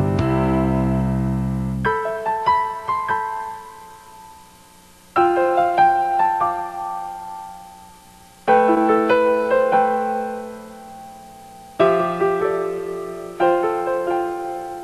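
Background piano music: slow phrases of struck notes that ring and fade, a new phrase beginning about every three seconds.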